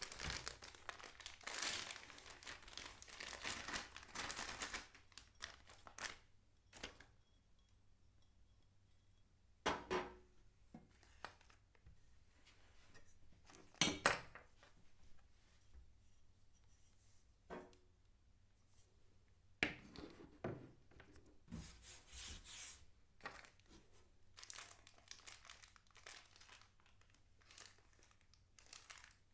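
Packaging being unwrapped: plastic and paper crinkling and tearing in irregular bursts, with a few sharp knocks as parts are handled.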